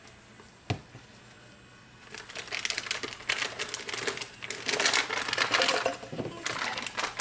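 A piping bag being filled with whipped soap frosting: rapid clicky rustling and scraping that starts about two seconds in, after a single knock.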